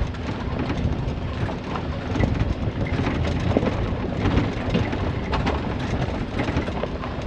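Suzuki Jimny 4x4 working along a rough off-road track: the engine runs steadily under a dense, irregular clatter of knocks and rattles from the wheels, suspension and body over stones.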